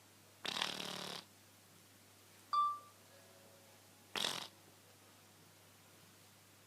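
A sleeping cat snoring: two raspy snore breaths, one about half a second in and another a little after four seconds, with a short high squeak between them.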